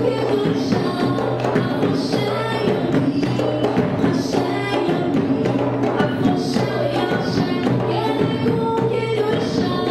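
Music with a steady beat and busy percussion.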